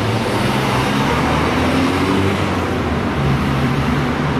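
Road traffic: cars driving through a street intersection, a steady mix of engine hum and tyre noise.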